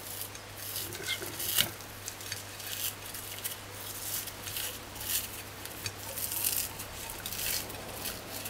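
A knife scraping and clicking against a china plate as the skin is peeled off a piece of salt codfish, in irregular strokes, with one sharp click about one and a half seconds in the loudest.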